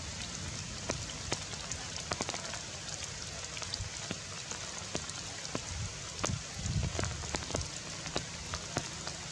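Steady rain falling on leaves, with many separate drops ticking sharply. There is a brief low rumble a little past halfway.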